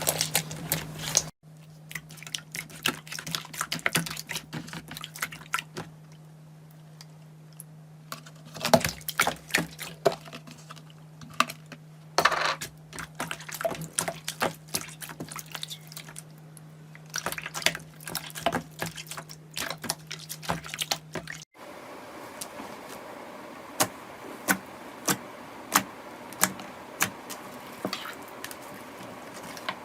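Slime being squeezed, stretched and pressed by hand, with wet, sticky clicks and crackles. A steady low hum runs under the middle part, and near the end sharper pops come about once a second.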